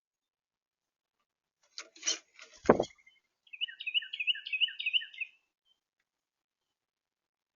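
A short clatter of sharp clicks ending in one loud low thump, then a small bird singing a quick run of about seven repeated chirping notes.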